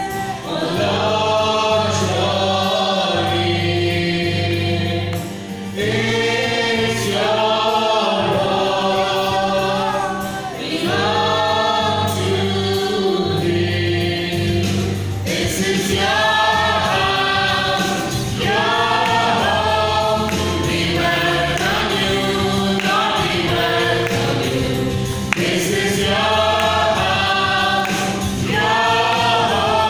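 Small mixed group of women's and men's voices singing a worship song in harmony, accompanied by an amplified acoustic guitar.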